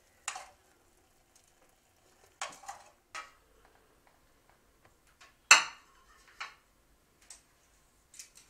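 Metal tongs clinking against a ceramic plate and a skillet as boiled bratwurst are moved from the pan onto the plate: a handful of separate clinks, the loudest about five and a half seconds in with a short ring.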